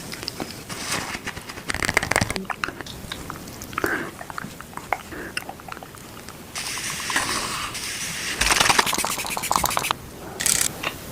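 Close-miked ASMR handling of cosmetic masks and cream containers: irregular scratching, crackling and clicking, in bursts with short pauses.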